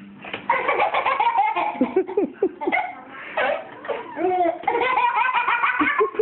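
Young child laughing hard, in two long runs of quick laughs starting about half a second in.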